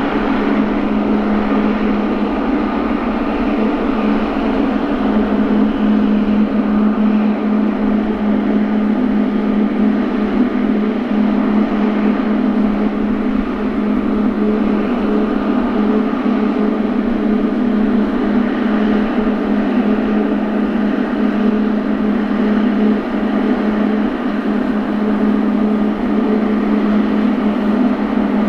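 Jet aircraft engines running steadily at low power, a constant drone with a strong low hum.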